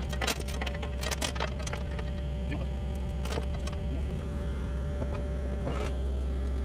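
Compact excavator's diesel engine idling steadily, with scattered clicks and light metallic clinks over it.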